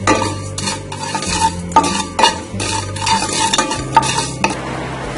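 A slotted wooden spatula stirring cumin seeds as they dry-roast in a nonstick kadhai: brisk scraping strokes, about two to three a second, which stop shortly before the end.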